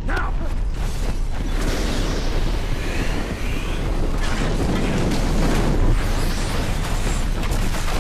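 Atomic bomb blast wave in film sound design: a loud, continuous rush of wind and flying debris over a deep, steady rumble.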